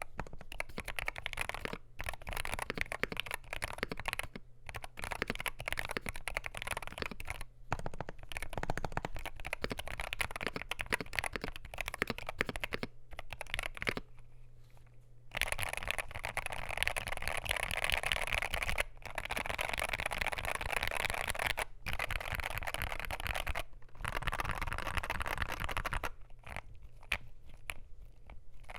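Typing on a Wooting 60HE keyboard with lubed, filmed Gateron Lekker Hall-effect switches and PBT keycaps: a fast, dense stream of key clacks. It eases off briefly about halfway, comes back denser, then thins to scattered keystrokes near the end.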